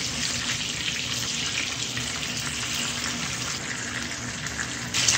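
Shami kebab patties frying in hot oil in a pan, a steady sizzle. It grows louder about five seconds in.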